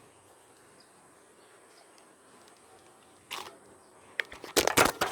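Low background hiss for about three seconds, then a brief rustle and, near the end, a quick run of loud, sharp clicks and knocks.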